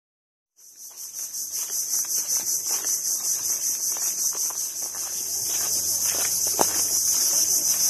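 A chorus of insects shrilling high and steady, pulsing about four to five times a second, starting about half a second in. Faint clicks and knocks sound beneath it, the sharpest about two-thirds through.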